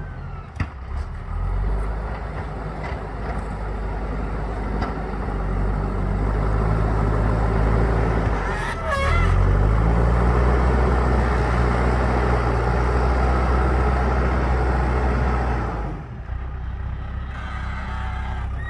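JCB 3DX Super backhoe loader's diesel engine working under load. It revs up about halfway through, runs hard and steady for several seconds, then drops back to a lower speed near the end.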